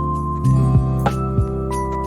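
Background music: gentle instrumental music with sustained pitched notes and a light, regular beat.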